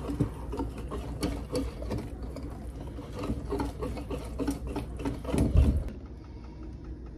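Wire whisk beating cornmeal batter in a glass mixing bowl: rapid, rhythmic clinking of the wires against the glass. A loud low thump comes about five and a half seconds in, and the whisking stops soon after.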